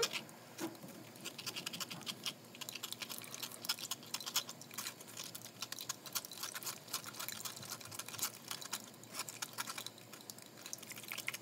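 A spoon scraping and pressing thick chili sauce through a fine-mesh metal strainer, making a run of quick, irregular scratchy strokes.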